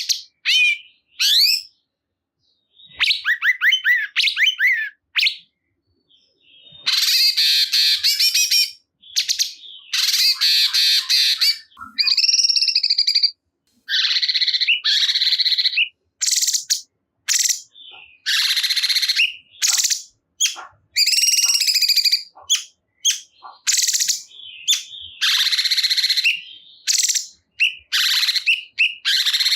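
Cungkok songbird singing in repeated bursts of fast, harsh chattering phrases mixed with sweeping chirps, each phrase a second or two long with short gaps between; a masteran song meant to set caged cungkok birds singing.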